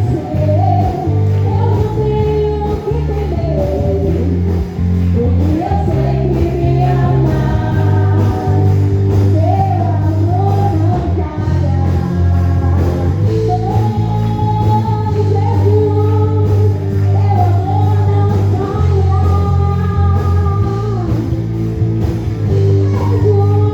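Live gospel praise music: a singer's melody over amplified instruments with a strong, steady bass line.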